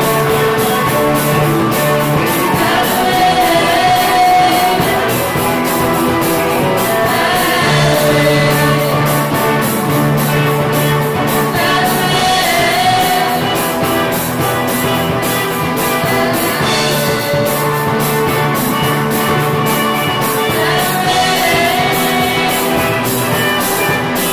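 Live rock band playing a song with female lead vocals over electric guitars, bass, keyboard and drum kit.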